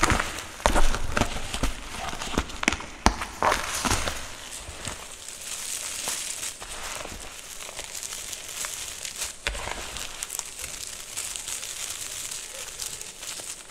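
Powdery dyed gym chalk crushed and crumbled by hand, a dense dry crunching and crackling. Sharp, loud crunches come in the first few seconds, then a steadier, softer crumbling.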